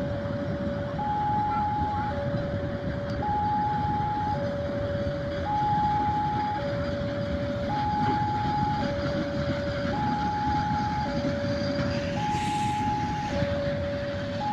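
Two-tone electronic level-crossing alarm, switching between a high and a low tone about once a second, over the steady rumble of a passing train. A short hiss sounds near the end.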